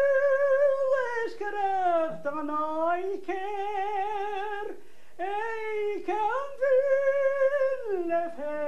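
An elderly woman singing unaccompanied: a single voice holding long notes with a slow vibrato, with a short pause about five seconds in.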